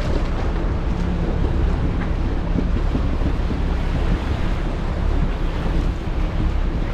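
Steady low engine and road rumble of a 4x4 vehicle on the move, with wind noise on the microphone.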